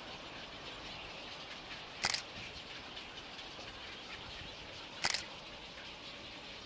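Camera shutter firing in two short bursts of a few rapid clicks, about three seconds apart, over a steady outdoor background hiss.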